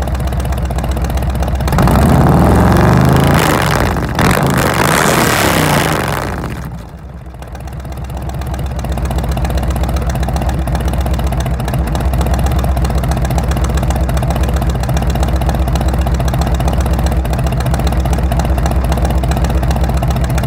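A 2017 Harley-Davidson Road King's Milwaukee-Eight 107 V-twin is running through a Samson true dual exhaust with fishtail tips, its baffles removed and replaced by torque cones. It idles, is revved twice between about 2 and 6 seconds in, then dips briefly and settles back into a steady, lumpy idle.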